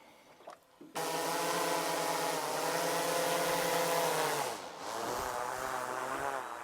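Vehicle engine running at a steady pitch, then dropping in pitch about four and a half seconds in and carrying on lower. It starts and stops abruptly.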